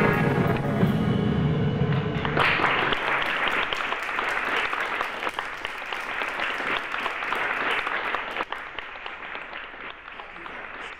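Live music ends about two seconds in, and audience applause breaks out and slowly dies away.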